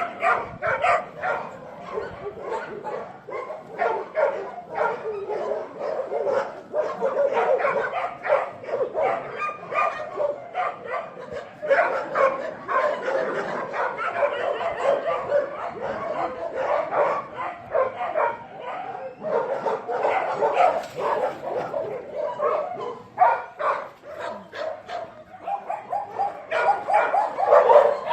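Several dogs barking and yipping over one another, with hardly a break.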